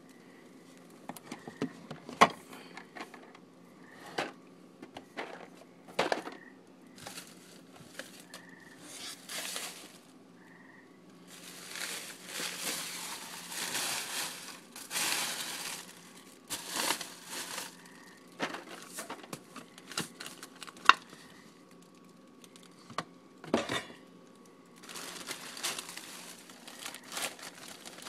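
Rummaging among food containers in a kitchen cabinet: cans and boxes knocked and shifted, with sharp clicks and bumps and stretches of packaging crinkling.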